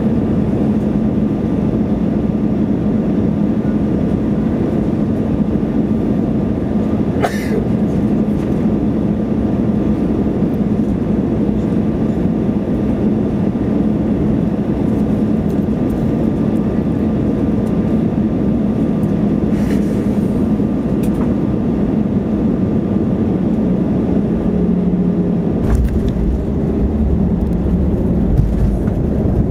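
Airbus A320 cabin noise heard from a window seat over the wing: steady engine and airflow noise with a low hum on final approach. About 26 seconds in, a deep rumble comes in as the wheels touch down and roll on the runway.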